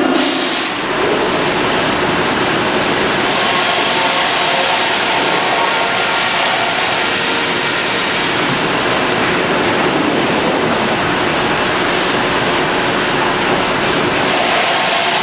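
Sawmill machinery running: a loud, steady mechanical din, with a short burst of high hiss at the very start.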